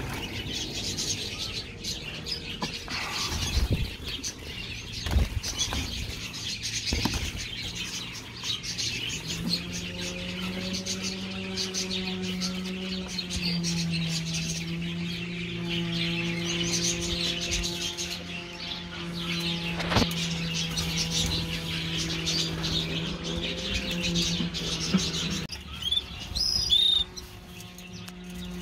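Aviary birds, budgerigars and finches, chirping and chattering in a continuous high twitter, with a few clear whistled calls near the end. A steady low hum joins about ten seconds in and stops a few seconds before the end.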